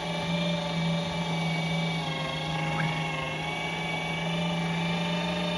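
LEM Mighty Bite electric meat grinder running steadily in its stuff setting, pushing meat out through the stuffing tube into sausage casing. Its motor gives a steady, even hum with higher steady tones over it.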